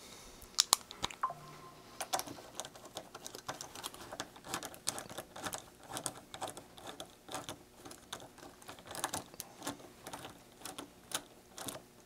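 Ratchet wrench with a socket on a hose-clamp screw, its pawl clicking in short irregular runs as the clamp is loosened.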